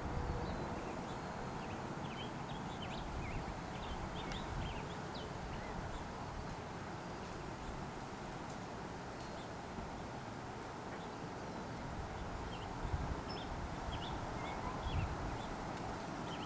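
Small birds chirping in short, scattered notes over a steady outdoor hiss and low rumble.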